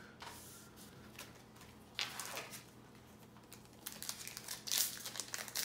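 Yu-Gi-Oh! trading cards and foil booster-pack wrappers being handled on a playmat: short, irregular crinkling and rustling, several separate bursts.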